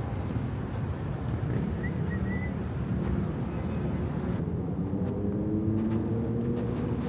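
Urban street ambience dominated by a steady low rumble of traffic. From about two-thirds of the way in, a few tones slowly rise in pitch.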